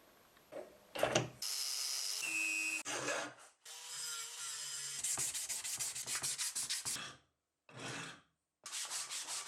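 Hand abrasion work on an old rusty masonry hammer: quick rhythmic rubbing strokes of about six a second, in several short bursts with sudden breaks between them. A brief steady high whine comes about two seconds in.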